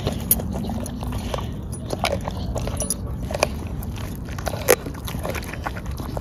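Dog chewing and biting into a whole raw black chicken, giving irregular crunches and clicks, the loudest about three-quarters of the way through.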